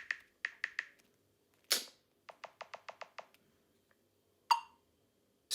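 Faint short clicks and taps in small groups, a brief swish about a second and a half in, a quick run of six clicks, and one short ringing blip near the end.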